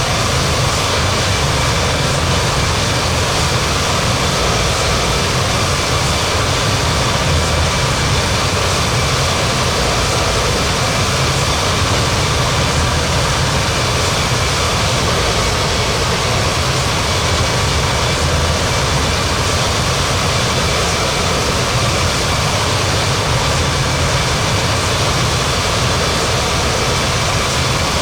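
Airbus A330-300 jet engines running at a steady level: an even rush of noise with a thin steady whine over it, neither rising nor falling.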